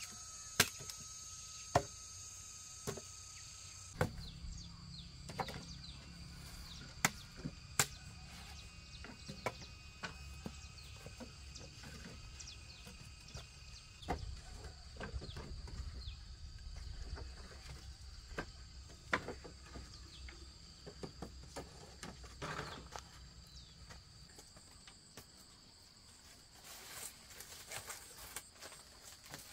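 Dry bamboo poles and branches being snapped and broken by hand: sharp cracks and knocks every second or two, over a steady high chirring of insects.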